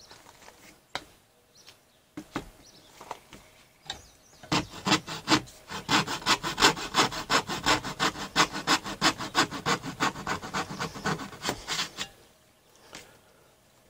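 Coping saw cutting a notch in a composite plastic trim board: a few light starting strokes, then fast, even back-and-forth sawing at about five strokes a second that stops a couple of seconds before the end.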